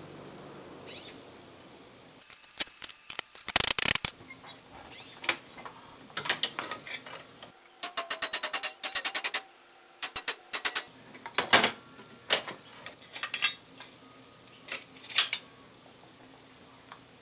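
Hand hammer tapping on a small metal grille bracket: scattered single taps and quick runs of light blows, the densest runs about halfway through, with one heavier blow soon after.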